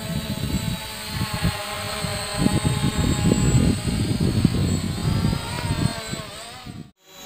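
Buzzing hum of a DJI Mavic quadcopter's propellers, with an uneven low rumble underneath. Its pitch wavers from about five seconds in as the motors change speed, and the sound cuts off abruptly near the end.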